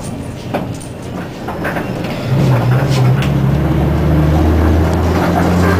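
Hyundai Super Aero City bus heard from inside the cabin: a road rumble with a few light rattles, then about two seconds in the engine drone grows louder and deep as the bus pulls harder, holding steady with a slight shift in pitch near the end.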